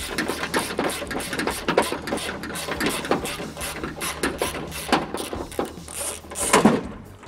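Rapid metallic clicking and rattling from inside a car door as the window regulator is worked loose, with a louder burst near the end.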